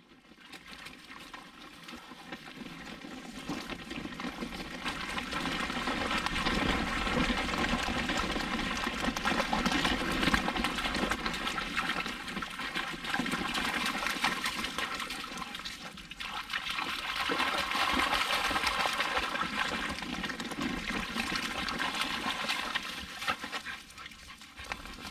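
Water splashing and sloshing as dogs run through a shallow muddy stream, a steady rushing noise that builds over the first few seconds.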